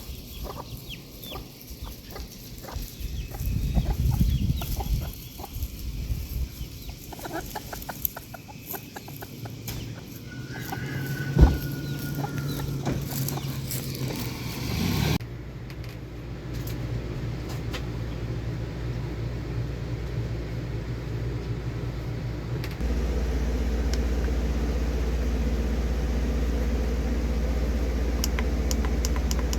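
Chickens clucking, with scattered knocks and clicks, through the first half. After a sudden change about halfway, a steady low hum takes over and grows louder near the end.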